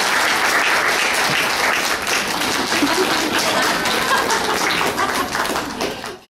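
Audience applauding, a dense patter of many hands clapping, which cuts off suddenly near the end.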